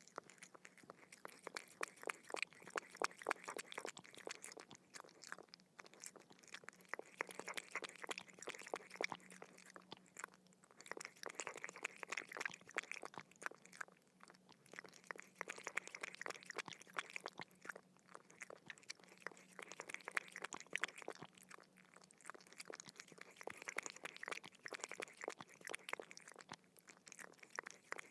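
A dog lapping water: a rapid run of wet licking clicks, in bouts of a few seconds with brief pauses between.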